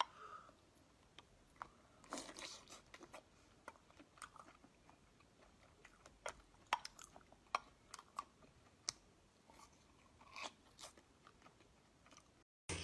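Faint, scattered eating sounds of cooked seafood: irregular wet mouth clicks, crunching and chewing.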